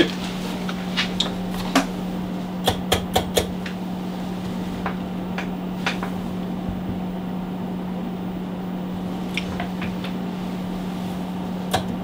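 Sharp clicks from controls being worked on a spectrum analyzer under alignment, over a steady low hum. A quick run of four clicks comes about three seconds in, and single clicks are spread through the rest.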